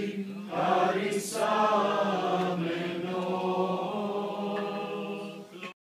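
A group of voices singing Orthodox Easter chant, with a steady low note held beneath the moving melody. It cuts off abruptly near the end.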